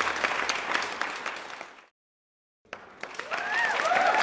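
Crowd applauding. The applause fades and cuts to dead silence for under a second about halfway through, then resumes, with voices starting to cheer over it near the end.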